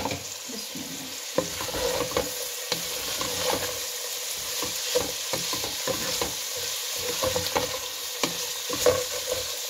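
Chopped cabbage, onion and potato sizzling steadily in hot oil in a pan, while a wooden spatula stirs them, with frequent short knocks and scrapes against the pan.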